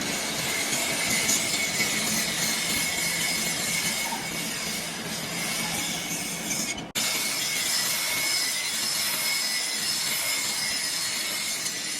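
Steady, harsh metal-working noise with a constant high-pitched squeal, broken off sharply for an instant about seven seconds in.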